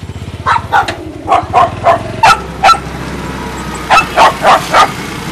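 Dog barking in short, sharp barks, about seven in quick succession, then a pause, then another run of four near the end, over a steady low hum.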